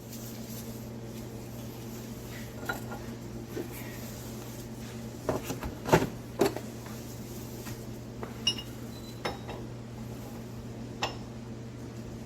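Scattered metallic clinks and knocks of steel bearing-press tool pieces being handled and fitted together. The loudest cluster is about halfway through, with a few lighter ringing taps later, over a steady low hum.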